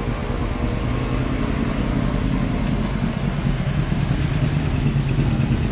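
Supercar engine running as the car drives slowly through a bend, a steady low rumble that grows slightly louder toward the end.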